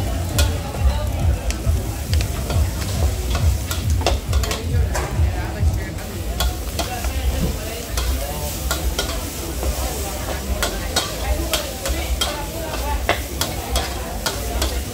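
Stir-frying in a wok: food sizzling while a metal spatula scrapes and clinks against the pan in sharp, irregular strokes.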